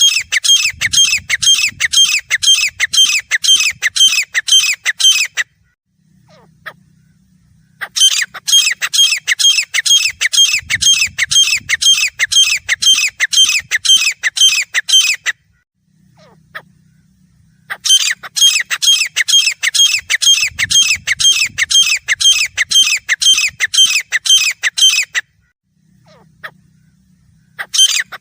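Grey francolin calling: loud bouts of fast, evenly repeated harsh notes, each bout lasting several seconds and broken by short pauses. Three full bouts are heard, and a fourth starts right at the end.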